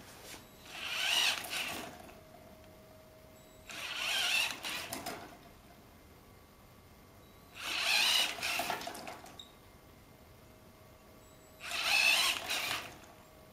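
Gyroscopic inertial thruster's drive motor whirring in four short bursts about four seconds apart, each about a second and a half long, as it swings the rotating scaffold and its gyro weights around one cycle at a time. The gyroscopes themselves are switched off and ride as plain weights.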